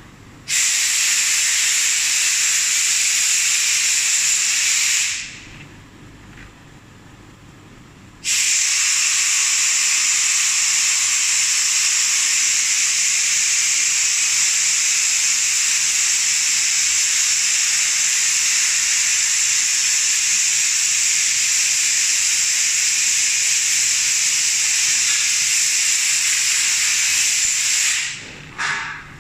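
A loud, steady hiss that starts abruptly, dies away after about five seconds, starts again about three seconds later and runs on until it cuts off near the end, with one short final burst.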